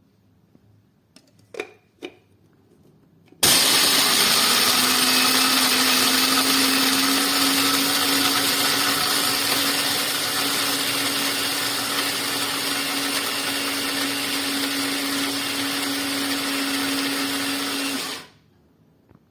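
Two light clicks, then an Amazon Basics electric coffee grinder's motor running steadily for about fifteen seconds with a steady hum, then cutting off sharply.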